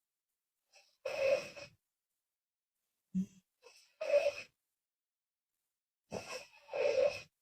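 A woman snoring in her sleep with laboured breathing, sounding on both the out-breath and the in-breath. About five short rasping breaths come a second or two apart, the last two close together near the end, with silence between them.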